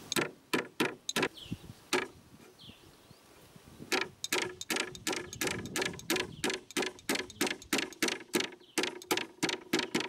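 Claw hammer driving nails into the wooden frame of a transitional beehive. A few blows come in the first two seconds, then a pause, then a steady run of about three strikes a second from about four seconds in.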